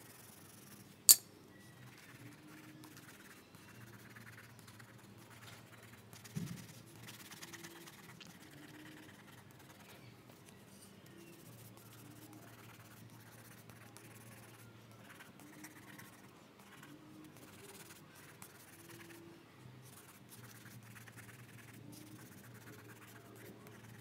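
Faint graphite pencil scratching on paper, with one sharp click about a second in and a dull thump about six seconds in.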